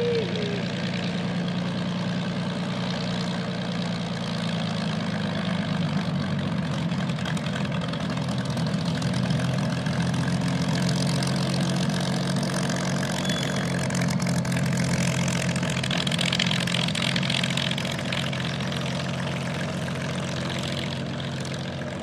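Allison V-1710 V-12 engine of an Ilyushin IL-2 Sturmovik running at low power with its propeller turning as the aircraft taxis. The engine note shifts and grows a little louder about five seconds in.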